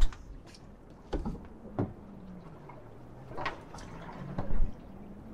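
Water lapping and slapping against the hull of a small drifting boat, with a few sharp knocks and splashes spread through, over a faint low hum that wavers in pitch.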